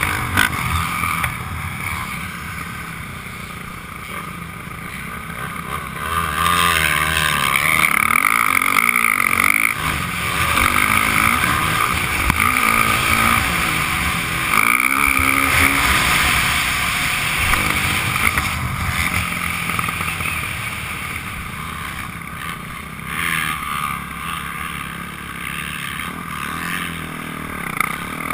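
Motocross dirt bike engine heard from the rider's helmet, revving up and dropping back again and again as the bike accelerates, shifts and rolls off over the track.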